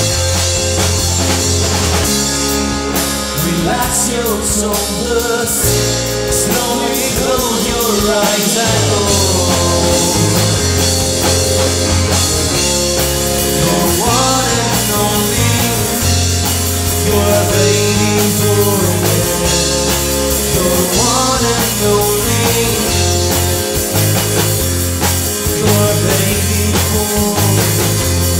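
A rock band playing live: electric guitar, bass guitar and drum kit, with a sung lead vocal line.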